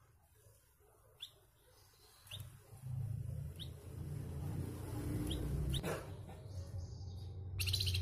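Caged flamboyan songbird giving short, sharp chirps about a second apart, then a louder harsh, rasping call near the end, over a low rumble.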